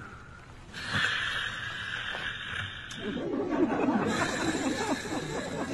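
People stifling giggles and snickering quietly, with some low chatter, over a steady hiss. The giggling builds from about halfway through.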